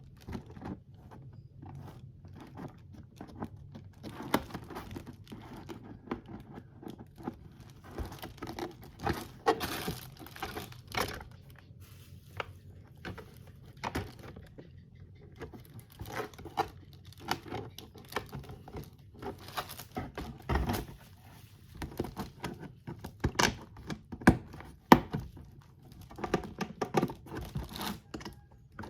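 Packaging crinkling and tearing while a plastic box is handled, with scattered light knocks; a few louder knocks come about three quarters of the way through.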